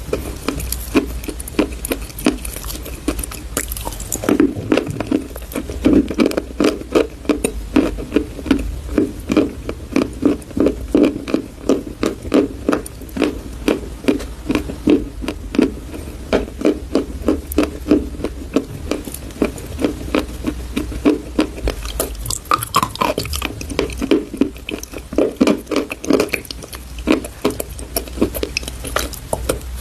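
Close-miked chewing of crunchy baked chalk paste: a quick, steady run of crunching bites at about three a second, with a brief pause about two-thirds of the way through.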